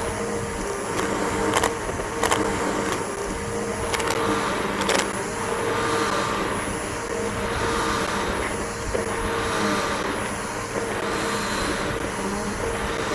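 Bissell BigGreen PowerForce vacuum cleaner running over grass: a steady motor drone with a high whine, broken by a few sharp clicks in the first five seconds.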